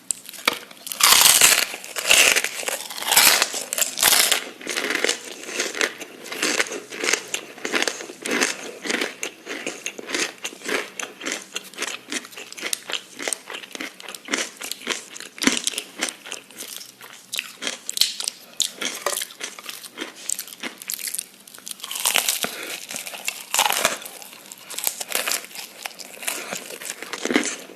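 Close-miked crunchy eating: bites and chewing with dense crackling and crinkling. Louder bursts of crunching come near the start and again about 22 seconds in.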